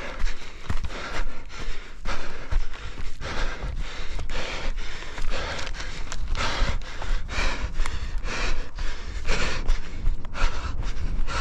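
A runner panting hard, with rhythmic running footsteps, close to a head-mounted microphone, over a steady low rumble.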